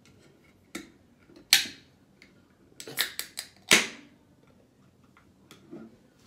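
Ring-pull tab of an aluminium can of Hawaiian Sun Luau Punch being worked open: a loud crack about one and a half seconds in, a quick cluster of clicks around three seconds, then another loud crack just before four seconds.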